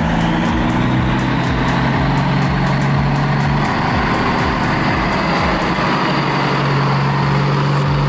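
Heavy truck engine running steadily, a low even hum with a faint regular ticking above it.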